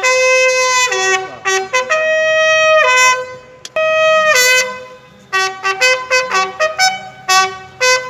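Brass bugle call sounded in salute at a flag hoisting: a few long held notes, then quicker, shorter notes from about five seconds in.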